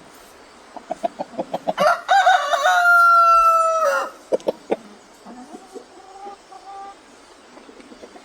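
Chickens clucking, with a rooster crowing once about two seconds in: one long call lasting about two seconds, slightly falling at the end. It is the loudest sound here.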